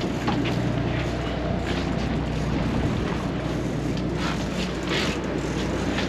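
Sportfishing boat's engine running steadily with a low drone, under rushing wind and water noise, with a few brief hissing sounds.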